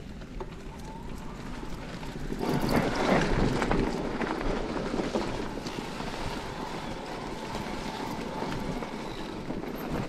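Electric mountain bike riding over a leaf-covered forest trail: tyres rolling through dry fallen leaves and bike rattle, with wind on the microphone. It gets louder and rougher from about two and a half seconds in, then settles.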